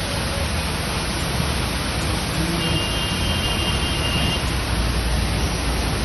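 Heavy rain and fast-flowing floodwater rushing down a street, making a loud, steady wash of noise.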